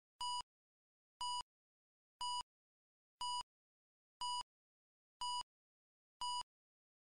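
Countdown beeps: a short electronic beep once a second, seven times, each the same steady high tone with dead silence between, counting down a film-leader-style countdown.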